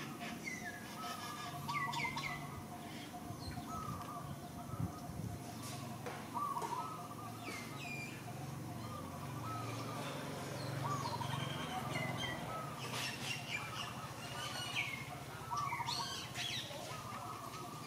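Wild birds chirping and calling again and again, short trilled notes mixed with sharp downward-sweeping whistles, over a faint low hum.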